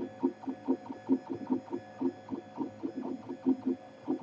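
NEMA 17 stepper motors of a cantilever 3D printer sounding in short, quick pitched bursts, several a second, as the print head moves back and forth laying down the first layer of a print.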